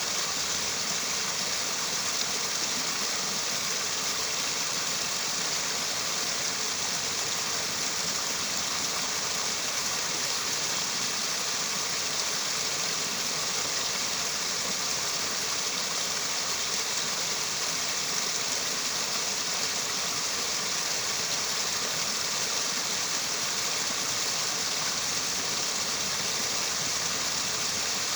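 Mountain valley stream flowing, a steady, unchanging rush of water.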